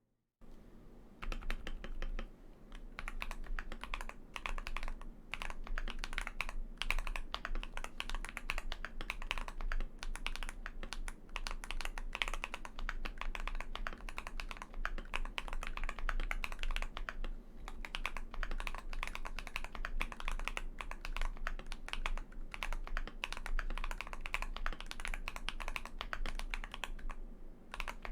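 Fast continuous typing on a mechanical keyboard fitted with factory-lubed Akko V3 Lavender Purple Pro tactile switches on an aluminium plate. The dense key clatter starts about a second in and runs on with only brief pauses.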